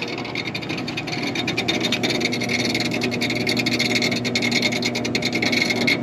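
Rooftop package air-conditioning unit running with a weird noise: a steady hum under a fast, continuous rattling and scraping. The technician puts it down to the condenser fan motor, and the condenser fan blade turned out to be broken at its hub, with the shaft and hub spinning inside the blade.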